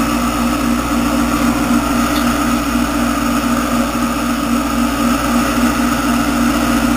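Four Whisper 10-30i internal aquarium filters running: a steady motor hum with the rush of water churning at the surface.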